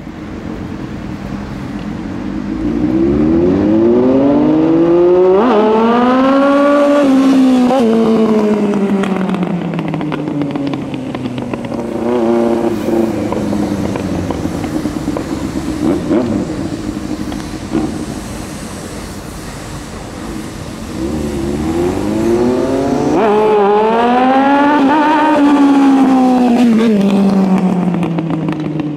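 Yamaha R1 inline-four engine accelerating and easing off as the bike passes twice; each time the engine pitch climbs to a peak and then falls away, with a lower, steadier run between the two passes.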